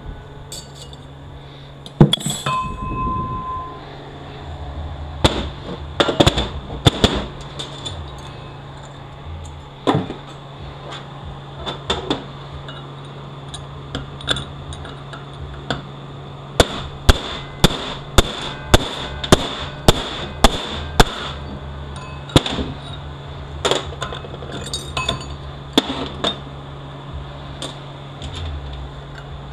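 Hammer blows on a steel bushing driver, driving a new bushing into an automatic transmission part. Scattered single knocks and clinks are followed, past the middle, by a run of about ten evenly spaced strikes, about two a second.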